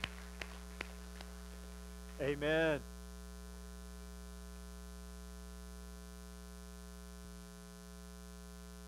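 Steady electrical mains hum with a buzz of overtones, and a few faint ticks in the first second.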